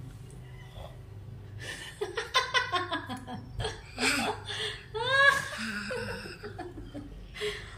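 A small child laughing: a run of quick giggles, then high squealing laughs, loudest about five seconds in, with a short last laugh near the end.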